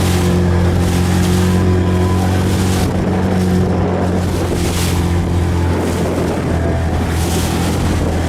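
Strong wind blowing across the microphone and water rushing, swelling a few times, over a steady low hum.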